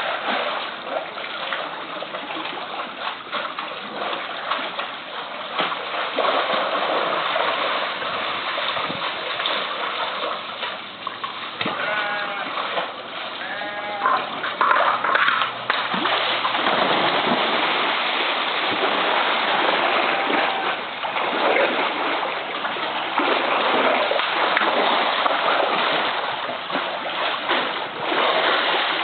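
Pool water splashing and sloshing continually as a polar bear plays rough with a float, kicking it and diving, with repeated sharp splashes. A short high voice calls out briefly about halfway through.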